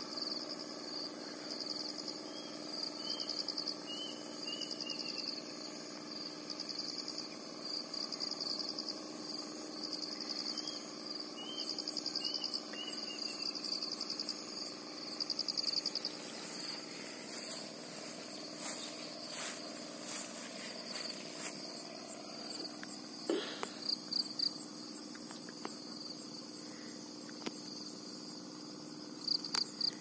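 Insects chirping: a high steady trill over a faster pulsing chirp, both falling quiet a little past halfway. A few short falling bird calls come in the first half, over a faint low steady hum.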